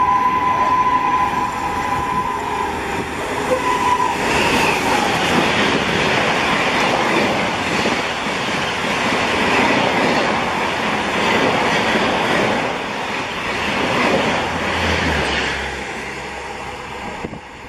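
Indian Railways WAP-7 electric locomotive hauling the Shatabdi Express through a station at full speed. Its horn sounds a steady tone for the first few seconds, then the coaches rush past with a loud rumble and a rhythmic clatter of wheels over rail joints, fading as the train recedes near the end.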